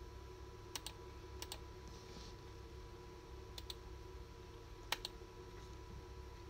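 Computer mouse clicking: about four quick double clicks, spaced a second or more apart, over a faint steady background hum.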